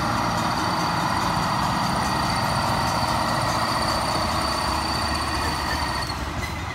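Budd Rail Diesel Car passing close by: its underfloor diesel engine running and its steel wheels rolling over the rails in a steady rumble. A thin high squeal rides over it and stops about six seconds in.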